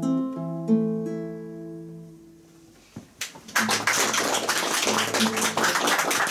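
Nylon-string classical guitar playing the closing notes of a song, which ring on and fade away. About three seconds in, a small audience breaks into applause that continues steadily.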